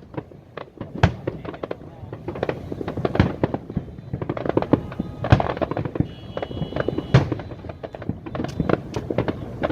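Fireworks display: a rapid, irregular series of sharp bangs and crackling bursts, some single and some in quick clusters.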